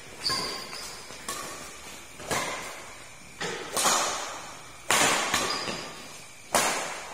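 Badminton rackets hitting a shuttlecock back and forth in a rally: about seven sharp hits, roughly one a second with two coming close together near the middle, each echoing briefly in the hall.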